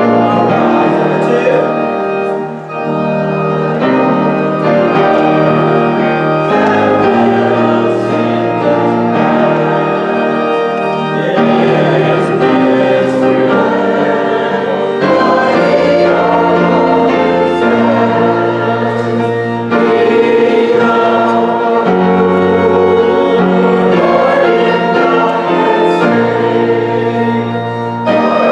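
Church congregation and choir singing a hymn together, with instrumental accompaniment holding sustained bass notes.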